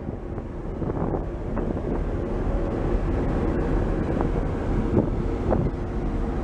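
Car ferry under way: the steady low rumble of its engine with wind buffeting the microphone.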